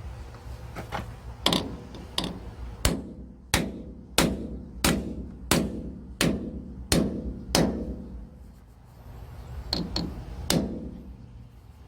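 Hand hammer striking repeatedly in an even rhythm, about ten blows at roughly one and a half a second, then a pause and two or three more blows.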